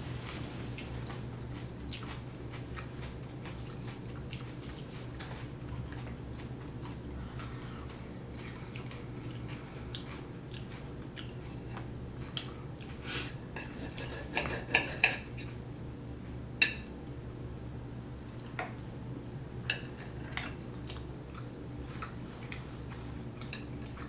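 Close-miked chewing and mouth sounds of a person eating deep-dish pizza, with scattered sharp clinks of cutlery on a plate, busiest a little past the middle. A steady low hum runs underneath.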